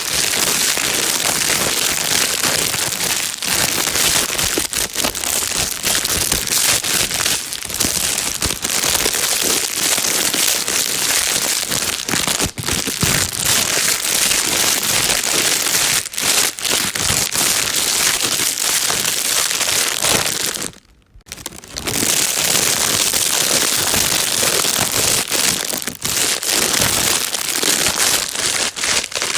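A plastic bag being crinkled and rustled continuously, a dense crackling noise, with a brief half-second break about two-thirds of the way through.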